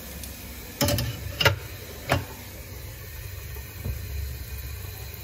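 Water running down the sink's chrome tubular drain during a leak test of a joint sealed with ball wick, a steady low rush. Three sharp knocks come about a second in, near one and a half seconds and near two seconds.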